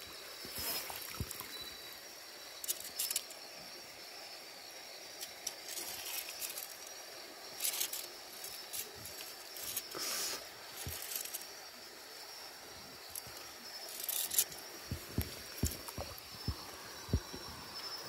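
Water splashing and trickling in short bursts as a scoop net is worked through a shallow stream among rocks, over a steady high hiss. Several brief dull knocks near the end.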